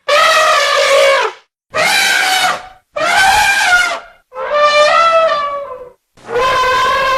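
Wild elephants trumpeting: five calls in quick succession, each about a second long with short gaps between, the last running on past the end.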